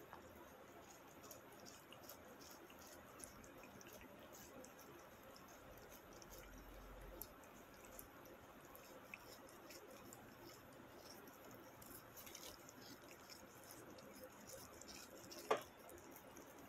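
Cat chewing watermelon: faint wet smacking and small clicks. One sharp click near the end.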